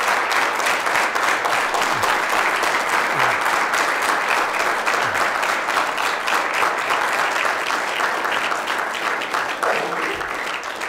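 Audience applauding, a dense steady clapping that thins a little toward the end.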